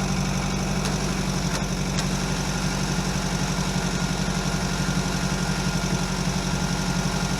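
An engine idling steadily with an even, fast pulse, and a couple of faint ticks about a second and a half in.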